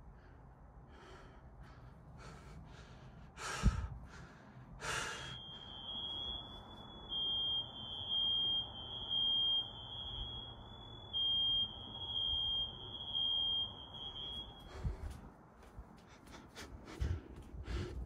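A couple of thumps, then a household smoke alarm sounds one steady high-pitched tone from about five seconds in for about ten seconds, muffled behind the front door. It was set off by smoke from burnt food released when the oven was opened.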